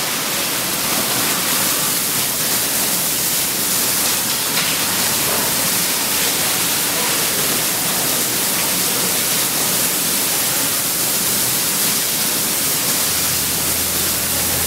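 Fire hose nozzle spraying a strong jet of water, a steady hiss. A low steady hum comes in near the end.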